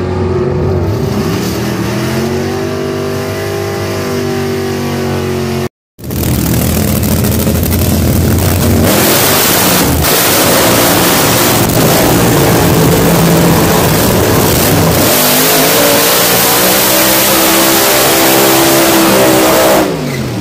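Drag race car engines: one revving with rising and falling pitch, then, after a brief cut about six seconds in, loud full-throttle engine noise for about fourteen seconds, its pitch climbing again near the end.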